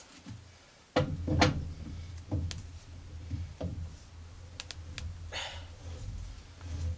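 Freshly threaded lathe chuck backplate being screwed by hand onto the threaded spindle nose of a Dunford Viceroy lathe: irregular metal knocks and clicks, a sharp knock about a second in, over a low hum.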